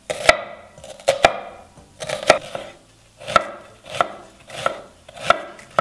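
Kitchen knife dicing an onion on a wooden cutting board: each stroke is a brief slicing crunch ending in a sharp knock of the blade on the board, repeated evenly about every two-thirds of a second.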